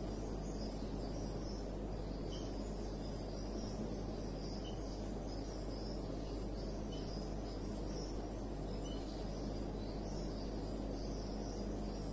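Quiet room tone: a steady low hum with faint, repeated high-pitched chirping over it.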